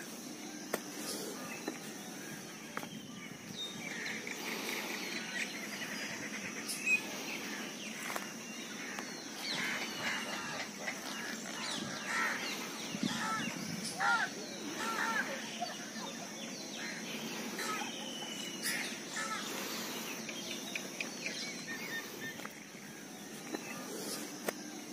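Several birds chirping and calling in short, repeated phrases over a steady high-pitched hiss, the calls busiest in the middle of the stretch.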